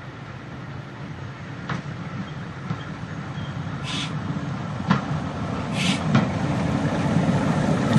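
Single-car diesel railbus approaching and passing close by, its engine running and growing steadily louder, with a few sharp clicks from the wheels on the track.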